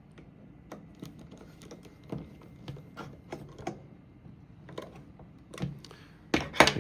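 Light, irregular clicks and ticks of a screw being turned snug into a Ruger 10/22 with a hand tool, with a few louder clicks near the end.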